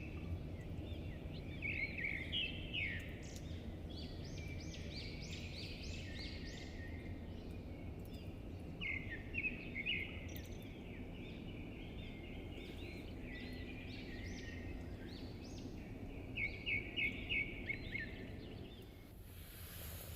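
Bird chirping in quick runs of short, high notes, heard in several separate groups over a steady low background rumble.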